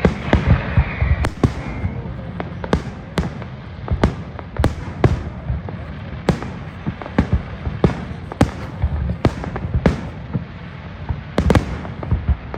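Aerial fireworks bursting in a rapid, irregular barrage: about two sharp bangs a second over a continuous low booming rumble, with a crackling hiss in the first couple of seconds.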